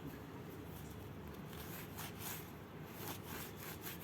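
Faint handling noises: a few light clicks and rustles as humidifier parts are picked up and wiped.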